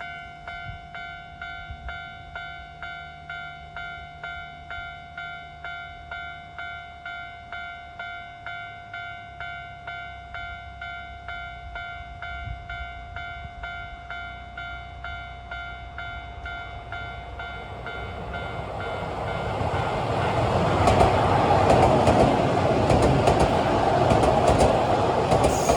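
Japanese railway level-crossing warning bell ringing in a steady repeating chime. From about eighteen seconds in, a Keio 1000 series electric train grows louder and passes over the crossing, its wheels clicking over the rail joints and drowning out the bell.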